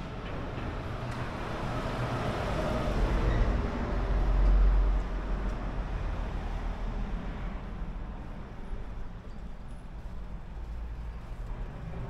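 A car passing on the street, growing to its loudest about four to five seconds in and then fading away.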